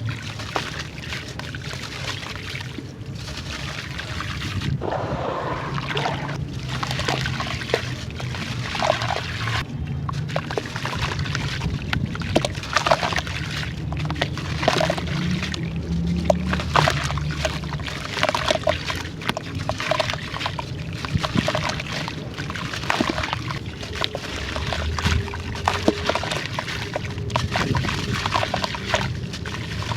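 Lumps of grainy sand-textured clay crumbling and dissolving in water: a steady stream of irregular wet crackles and crunches with sloshing and trickling.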